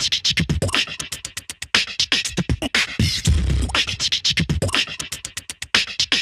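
Background music with a fast, beatbox-style electronic beat: rapid sharp percussive hits over repeating deep bass thumps.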